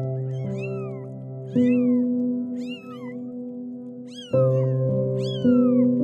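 Kitten meowing: five short, high meows about a second apart, each rising and then falling in pitch, over background music of sustained chords.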